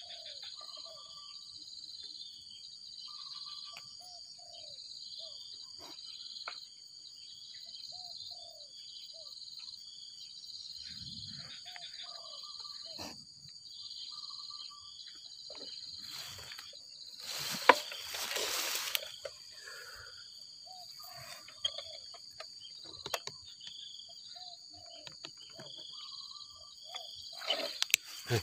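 Spotted dove cooing in short repeated phrases every few seconds over a steady chorus of crickets and other insects. A louder burst of rustling comes about two thirds of the way through.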